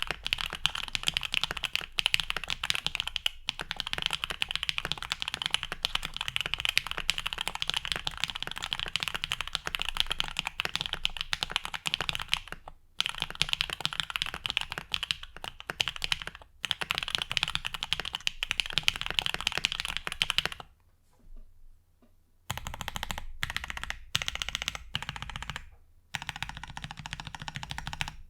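Fast typing on a 7V mechanical keyboard with lubed and filmed OPblack switches, a polycarbonate plate and PBT keycaps: a dense stream of keystroke clacks. The typing breaks off briefly a couple of times, stops for about two seconds near three-quarters of the way through, then resumes in short bursts.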